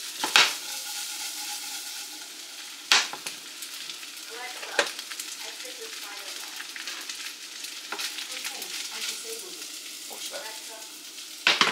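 Food sizzling steadily in a frying pan as it is stirred with a spatula, with a few sharp clacks of utensil against the pan, the loudest about half a second in and about three seconds in.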